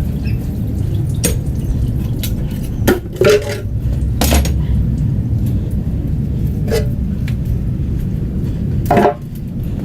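Metal engine parts and tools clinking and clanking, about six separate knocks, each with a short metallic ring, over a steady low hum.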